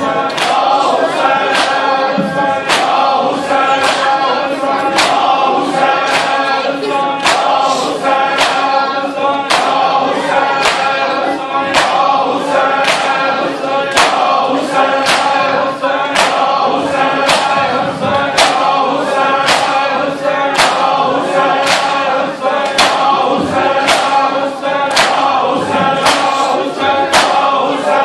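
A crowd of men chanting a noha together, with a steady beat of open-handed chest strikes (matam) a little faster than one a second.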